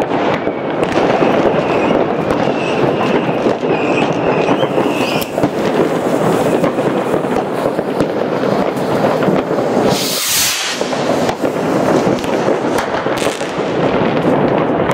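Massed New Year's Eve fireworks and firecrackers going off all around: a dense, continuous crackle of bangs. A whistling firework sounds for a few seconds about a second in, rising at its end, and a close firework hisses loudly about ten seconds in.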